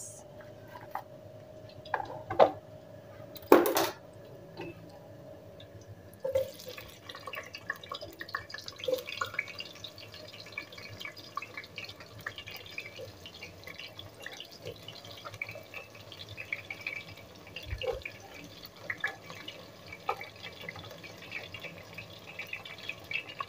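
Sliced onions frying in hot oil in an aluminium pot on a gas stove: a steady fine crackle of sizzling with small spits. It sets in about six seconds in, after a few knocks and scrapes of a knife and plate against the pot as the onions go in.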